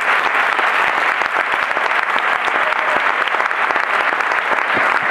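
Steady applause from a crowd, many hands clapping at once.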